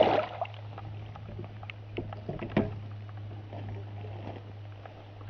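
A pike thrashing in a landing net at the water's surface: a loud splash at the start, then two shorter splashes about two and two and a half seconds in. A steady low hum runs underneath.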